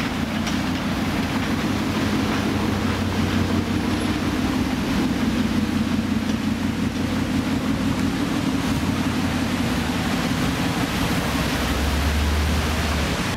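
A Ford Mustang's engine runs at low speed as the car rolls slowly past in traffic. It goes deeper and louder near the end as the car pulls away.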